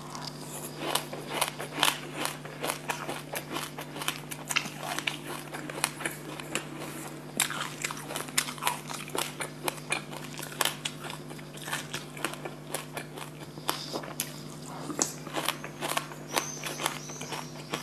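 Chewing a mouthful of black and white sesame seeds mixed with passion fruit pulp: a fast, continuous stream of small crisp crunches and crackles, over a low steady hum.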